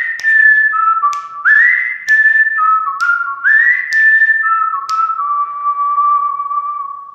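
Closing jingle: a whistled tune playing the same phrase three times. Each phrase swoops up to a high note and steps down twice, with a sharp click about once a second. The last low note is held and fades out.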